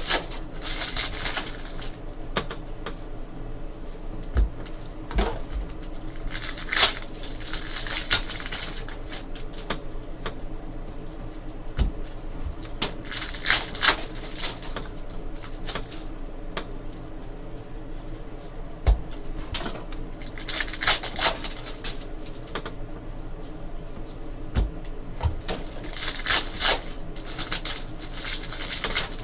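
Trading cards being handled on a table: repeated rustling and sliding of cards at irregular intervals, with a few light knocks as cards or packs are set down.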